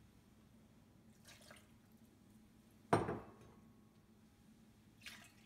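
Water poured faintly from a ceramic bowl into a saucepan, then a single sharp knock of the bowl with a short ring about three seconds in, and a small tick near the end.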